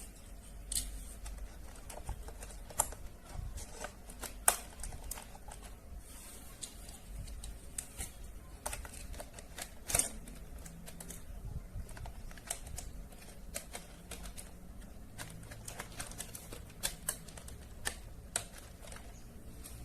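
Irregular sharp clicks and taps of hard plastic being handled, a toy and its packaging, with a few louder knocks among them.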